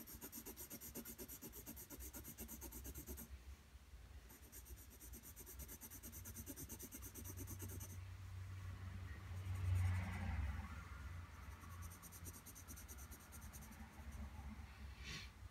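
Graphite pencil scratching on drawing paper in rapid back-and-forth hatching strokes, shading in a dark area. The strokes run in two bursts, with a short pause about three seconds in, and die away about eight seconds in; a soft low bump comes about ten seconds in.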